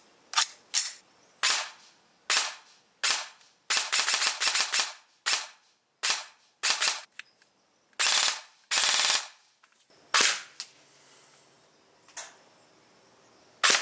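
PW9 electric airsoft submachine gun firing: single shots about a second apart, a quick string of shots about four seconds in, and two longer bursts of rapid fire around eight to nine seconds in.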